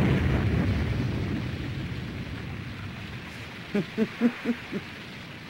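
A deep rumble of the ground shaking fades away over the first two or three seconds. About four seconds in, a man gives a short low chuckle of five quick 'heh' pulses.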